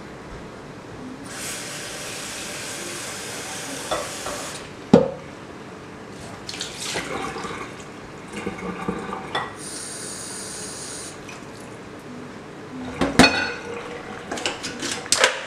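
Water pouring from a bowl through a metal mesh strainer of soaked split mung beans into a stainless steel sink, draining the beans. Sharp knocks and clatter of the bowl and strainer against the sink break in, the loudest about five seconds in and a cluster near the end.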